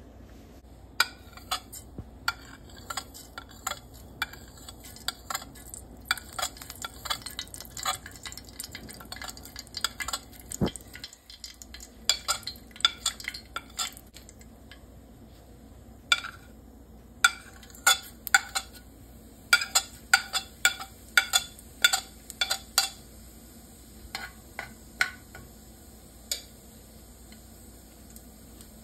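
Hot oil crackling and spitting in a nonstick frying pan: a steady faint sizzle under many sharp, irregular pops that come in clusters and thin out near the end.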